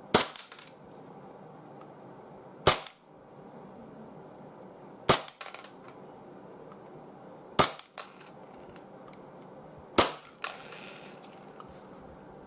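Tokyo Marui Glock 17 gas blowback airsoft pistol, powered by green gas, firing five single shots about two and a half seconds apart. Each is a sharp crack followed at once by a brief rattle.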